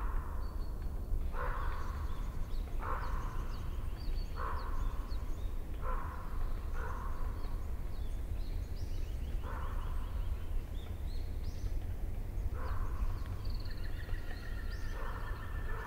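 Birds calling: a loud, rough call repeated every second or two, with fainter high chirps from smaller birds, over a steady low rumble.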